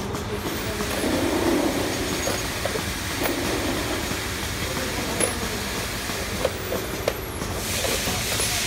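Steady mechanical noise of workshop machinery, with a few light metallic clicks about halfway through and toward the end as steel die parts are handled, and a brief hiss near the end.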